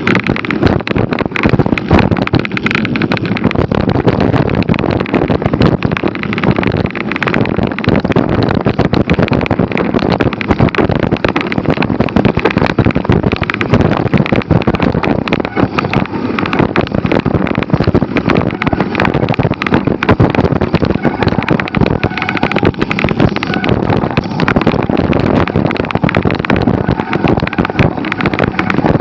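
Cannondale F-Si hardtail mountain bike riding over a rough dirt trail: a constant clatter of knocks and rattles, with wind noise on the microphone.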